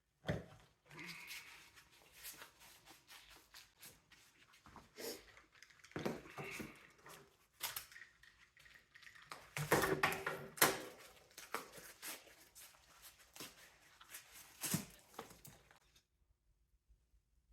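Mini split air-conditioner parts being worked apart by hand: irregular metal clanks, clicks and scraping, busiest with a cluster of sharper knocks midway, cutting off suddenly near the end.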